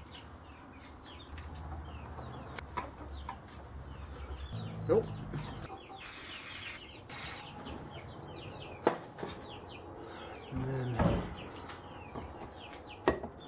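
Aerosol spray can with a straw spraying into a seized brake caliper in a hiss about a second long, about six seconds in, then a shorter spray just after. Scattered clinks and knocks of metal tools against the caliper and vise come before and after it.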